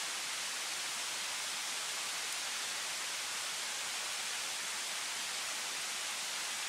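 Steady, even hiss of night-time outdoor ambience, unchanging and with no distinct sounds in it.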